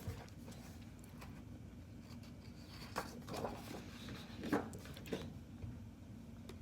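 Faint paper rustling and light taps, a handful of short sounds through the middle, as a picture book is handled and its pages are turned.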